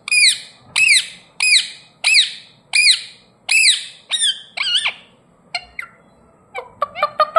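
Ringneck parrot squawking in a regular series, about one and a half calls a second, each call rising then falling in pitch. The series stops about five seconds in; a few short chirps follow, then a quick flurry of chirps near the end.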